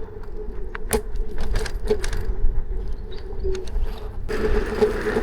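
Electric scooter on the move: a steady motor hum under low wind and road rumble, with scattered small rattling clicks. The rolling noise grows louder about four seconds in.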